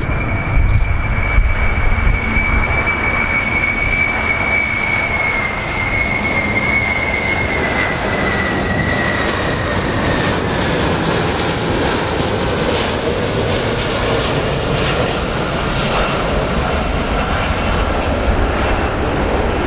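Boeing VC-25A (747-200) on landing approach, its four turbofan engines giving a steady roar with a high whine that slowly drops in pitch from about five seconds in.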